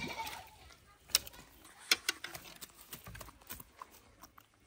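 A hooked rohu splashing at the surface as it is pulled from the pond, then several sharp slaps and knocks as the landed fish thrashes against the ground.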